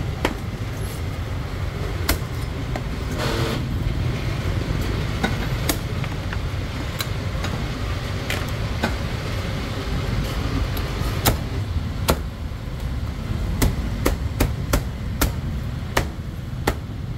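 Cleaver chopping on a cutting board: sharp single knocks at an uneven pace, in quick runs near the end, over the steady low rumble of street traffic.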